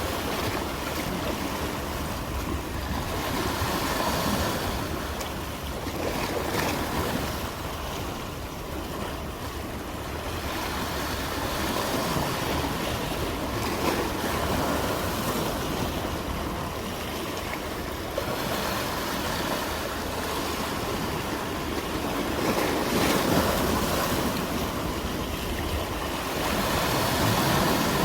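Ocean waves breaking and washing on the shore, a steady rush of surf that swells and eases every few seconds.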